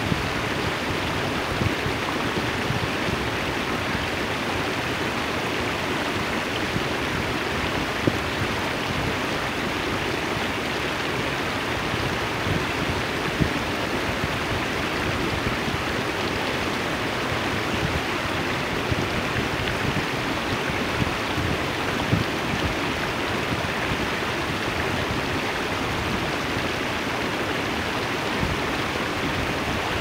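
Steady rush of shallow seawater washing over and around shoreline rocks, with a few small splashes standing out.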